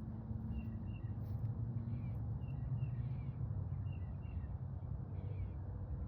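A bird calling: short high chirps, often in pairs, repeating every second or so over a steady low rumble.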